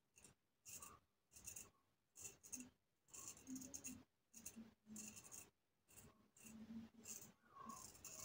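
Parker Variant adjustable safety razor with a Sputnik blade scraping through lathered stubble in a quick series of short, faint strokes, on a first pass with the grain.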